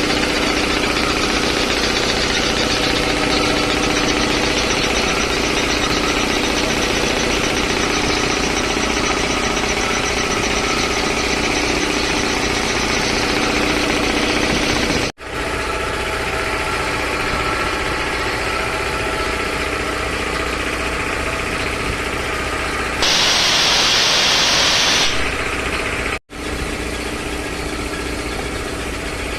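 A freshly serviced 3 HP LG-model air compressor running steadily. Near the end, a loud hiss of escaping air lasts about two seconds.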